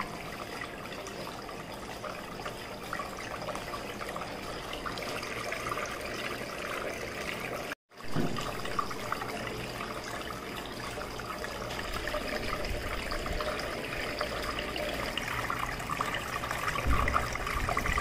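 Small tabletop waterfall fountain running: water pouring in two thin streams from its bowls into a pebble-filled basin, a steady trickling splash. The sound cuts out for a moment about eight seconds in.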